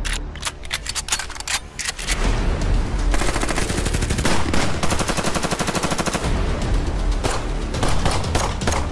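Automatic rifle fire: separate shots and short bursts at first, then about three seconds in a run of continuous rapid fire, over background music.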